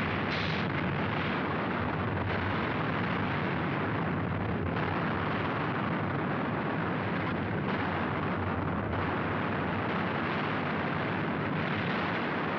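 Sound effect of an erupting volcano from an old film soundtrack: a dense, continuous rumble of blasts that shifts in texture every few seconds. It has the dull, narrow sound of a 1950s optical track.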